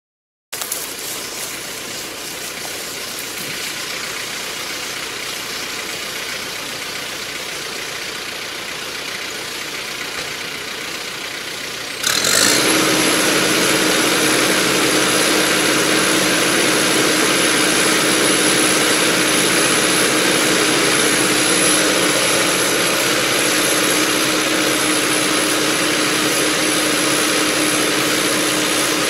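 Diesel engine of a large Kubota cab tractor running steadily. About twelve seconds in, the sound jumps abruptly louder with a quick rising sweep, then runs on evenly with a steady whine.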